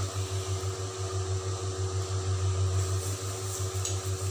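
A steady low mechanical hum, with a couple of faint light scrapes or ticks about three and a half seconds in.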